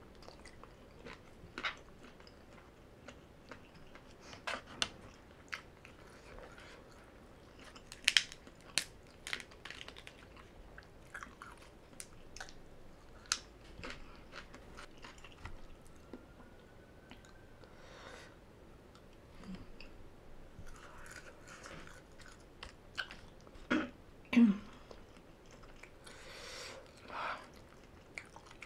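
A person chewing Thai papaya salad close to the microphone, with irregular sharp crunches and clicks; the loudest come about eight seconds in and again near the end.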